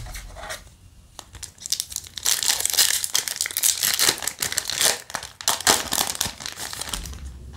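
Foil wrapper of a Yu-Gi-Oh! booster pack being torn open by hand: a few light handling clicks, then several seconds of loud crinkling and tearing of the foil, which tails off near the end.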